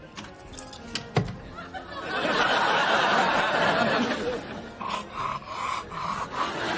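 Studio audience laughing, swelling about two seconds in and then dying away. Two short knocks come before it.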